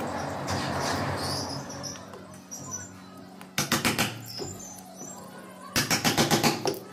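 A hand chisel chopping into the willow edge of a cricket bat blade, cutting out damaged wood, in two quick runs of sharp cracking clicks about four and six seconds in, after a short scraping rustle. A steady low hum runs underneath.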